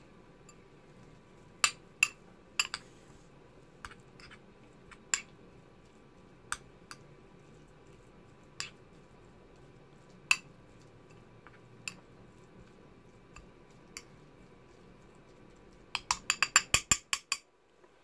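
Metal spoon clinking against a small glass bowl while stirring tuna and mayonnaise: separate clinks about once a second, then a quick run of about a dozen clinks near the end.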